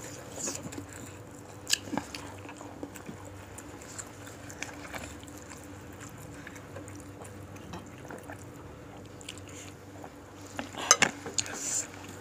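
Quiet eating sounds: chewing of bakso (meatball soup) with scattered clinks of cutlery against a bowl, and a louder cluster of clinks about eleven seconds in.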